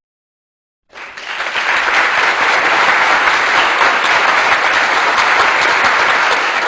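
Crowd applause sound effect: many people clapping at once. It starts about a second in and keeps on at an even level.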